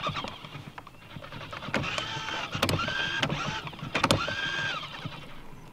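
Electric trolling motor whining in several short spells that each rise, hold and fall, with a few sharp knocks among them.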